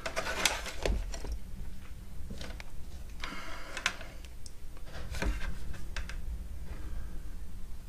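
Handling noise from multimeter test leads and probes: scattered light clicks and knocks, with a short rustle in the middle, as the probes are touched to the electromagnetic brake's wires for a continuity test.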